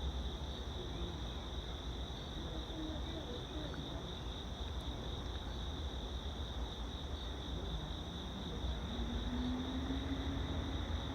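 2014 IC CE school bus's Cummins diesel engine idling with a steady low rumble; about eight seconds in, a tone rises slowly as the engine picks up a little speed.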